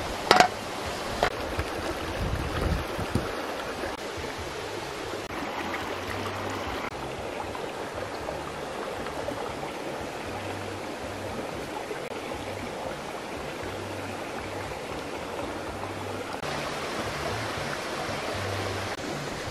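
Steady rush of a flowing stream, with a few sharp clicks and knocks in the first three seconds.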